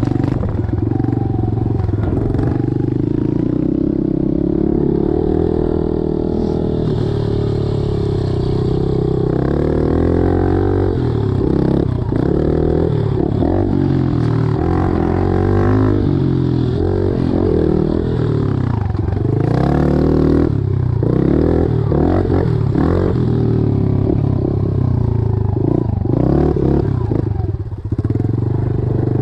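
Honda CRF110F pit bike's small four-stroke single, fitted with an aftermarket exhaust, being ridden hard, its pitch climbing and dropping over and over as the throttle opens and closes through the gears.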